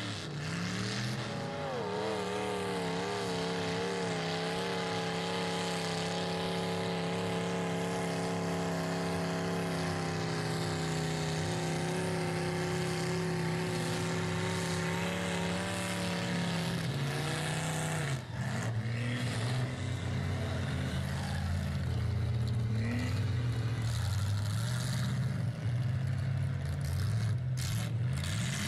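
Mud truck engine revving hard, its pitch climbing and then held high and steady as the big tires spin through mud. About two-thirds of the way through the note drops suddenly to a lower, wavering engine sound.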